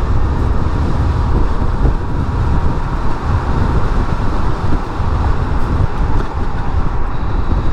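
Wind buffeting on the microphone and tyre and road noise as a Maeving RM1 electric motorcycle pulls away and rides on, a steady deep rush. The electric motor itself is almost silent under it.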